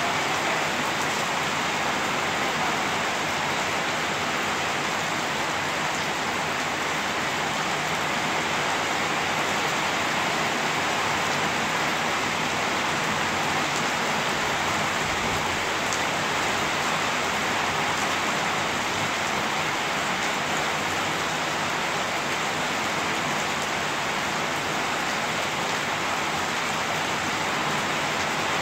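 Heavy rain falling steadily on wet paving stones, an even hiss with no change in strength.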